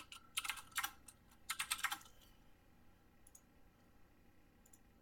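Typing on a computer keyboard: quick runs of key clicks over the first two seconds, then only a few faint taps.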